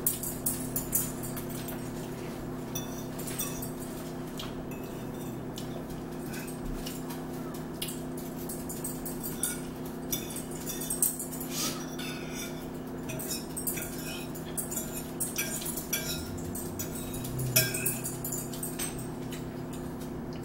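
Forks and spoons clinking and scraping on plates at scattered moments as two people eat, over a steady background hum.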